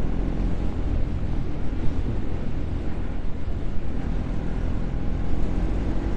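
Bajaj Pulsar NS200's single-cylinder engine running steadily at cruising speed, with wind rush on the microphone. The engine is running on the last of a one-litre fuel test after losing power and stalling.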